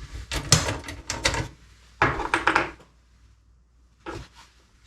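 Handling clicks and knocks from a small Hornady keypad vault safe: a quick run of clicks, a short rattling scrape about two seconds in, and one more knock near the end.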